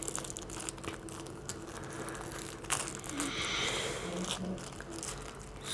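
Thin plastic wrapper around a lump of clay crinkling and rustling as it is pulled open by hand, with scattered sharp crackles.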